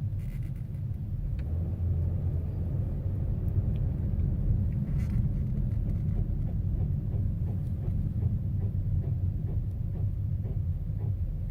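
2013 Buick LaCrosse on the move: a steady low rumble with repeated light knocks, thickest in the second half. This is the noise that developed after a brake job and tire rotation.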